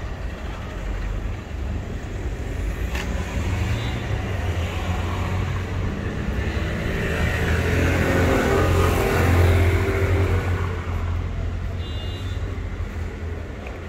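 Street traffic, with a motor vehicle passing close by: its engine and tyre noise build up, are loudest about nine seconds in, and then fade away.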